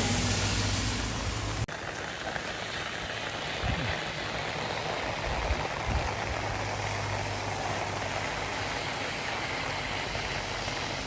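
Heavy rain falling, a steady even hiss. A low engine hum at the start stops abruptly after about a second and a half.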